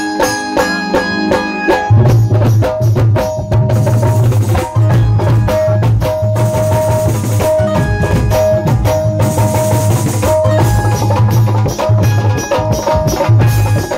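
Dholak and tabla playing a fast rhythm together, with dense, quick strokes and ringing pitched tabla notes. Deep bass strokes join in about two seconds in and keep pulsing.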